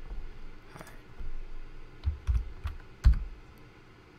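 Computer keyboard typing: about half a dozen uneven keystrokes, the loudest about three seconds in.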